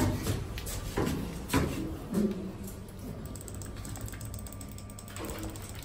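Otis ReGen lift mechanism clicking: a few separate knocks, then a fast run of even ticks with a faint steady tone about three seconds in, stopping about two seconds later.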